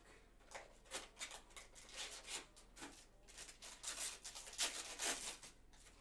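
Opening a Star Wars Masterwork trading-card mini box and its foil-wrapped pack by hand: irregular crinkling and rustling of cardboard and foil, louder near the end as the foil is pulled open.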